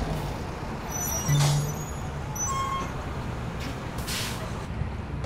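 Old bus engine idling with a steady low rumble, with two short, sharp air hisses from its air brakes, about a second and a half in and again about four seconds in.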